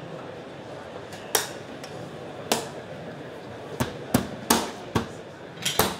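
Sharp knocks and clicks as the roof lantern's aluminium hip top caps are pressed and struck by hand onto the frame until they clip into place: about eight strikes, coming faster in the second half.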